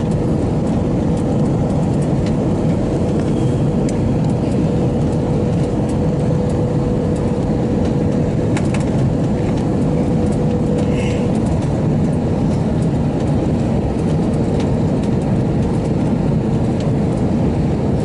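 Steady roar of an Airbus A321's engines and rushing air heard inside the cabin on final approach with flaps extended, with a thin steady hum running through most of it.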